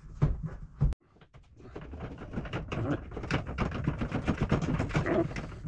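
Hands working inside a sink cabinet: a brief silence about a second in, then a dense run of small clicks and rattles that grows louder.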